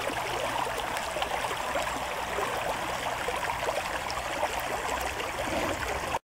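Shallow stream running steadily over stones, a constant rush of water that cuts off suddenly just before the end.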